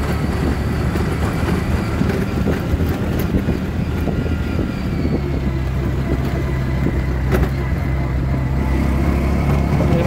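Small engine of a three-wheeled auto-rickshaw running steadily while driving, heard from inside the passenger cab, with a couple of sharp knocks or rattles from the body.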